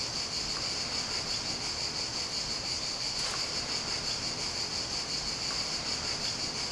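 Chorus of singing insects in summer vegetation: a continuous, even, high-pitched shrill that holds steady throughout.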